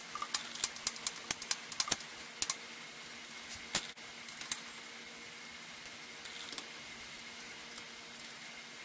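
Quick, irregular small clicks and taps of hands working a bicycle's rim brake and tyre, about a dozen in the first two and a half seconds, then a sharper click just before four seconds and a couple of light ones after. After that only a faint steady hum remains.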